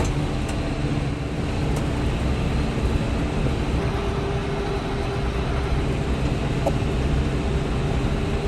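Farm tractor engine running at a steady speed while driving a round hay baler.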